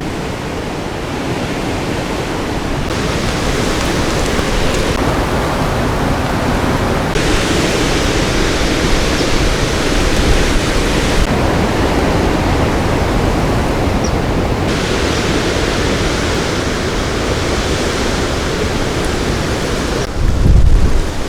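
Strong wind blowing with a steady loud rushing noise, its hiss swelling and easing every few seconds. Near the end a heavy gust buffets the microphone with a low rumble.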